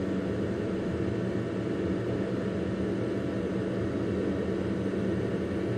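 Small computer fan in a homemade foam-box egg incubator running with a steady whirring hum.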